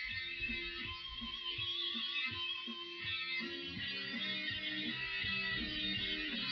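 Instrumental background music: a steady run of short pitched notes, with a wavering high tone about a second in.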